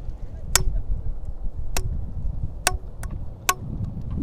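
Five sharp, irregularly spaced knocks with a short hollow ring, from a length of PVC pipe striking something hard, over a steady low rumble of wind and water.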